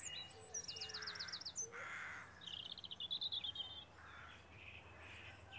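Faint wild birdsong: small birds chirping and trilling in quick repeated notes, with a few lower, hazier calls between them.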